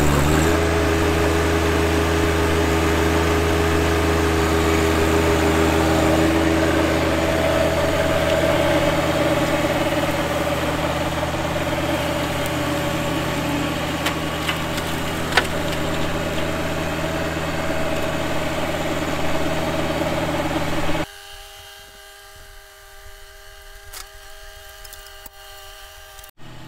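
John Deere 1025R compact tractor's three-cylinder diesel running steadily at working speed, driving a PTO-powered offset flail mower through tall grass. About 21 seconds in it drops to a much quieter, more distant running sound of the same tractor.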